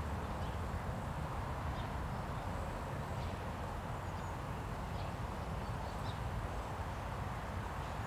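Steady low outdoor background rumble with a few faint, short high chirps of distant small birds scattered through it.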